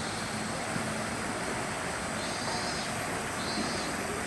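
Steady outdoor background noise, an even hiss with no distinct events, with a faint high buzz that comes and goes.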